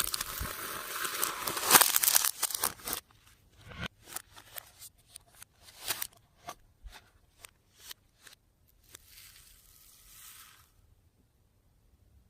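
Slime and mix-ins being handled. A loud crinkling, crunching sound lasts about three seconds, then comes a run of sharp, irregular clicks and pops, and a soft rustle near the end.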